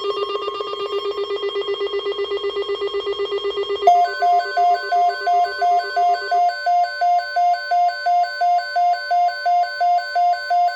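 Electronic emergency-alert tones announcing a severe thunderstorm watch: a rapid, ringing trill for about four seconds, then a louder pulsing two-note beep repeating about twice a second.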